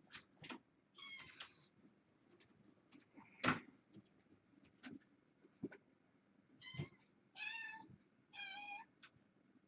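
Kittens meowing: a short high meow about a second in, then three more close together near the end, the last two longer and lower. Scattered light taps and knocks run throughout, with one sharper knock in the middle.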